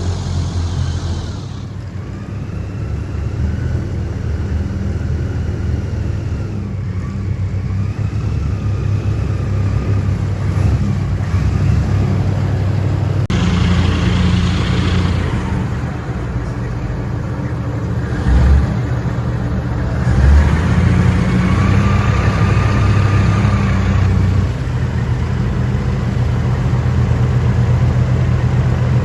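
Airboat engine and propeller running loud and steady, the pitch rising and falling in places as the throttle changes.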